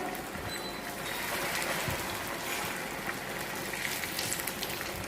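Vermicelli-coated chicken and potato balls deep-frying in hot oil: a steady sizzle with small crackles.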